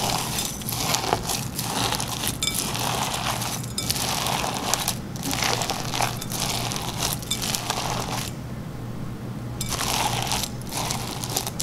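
Fishbowl slime packed with square plastic vase-filler pellets being squished and kneaded by hand, giving a dense crunching, crackling sound with short pauses and a brief lull about three-quarters of the way through.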